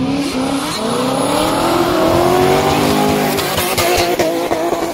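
Drift car engine revving hard, its pitch climbing over the first two seconds, then held high and stuttering in quick pulses near the end, over the hiss of spinning, sliding tyres.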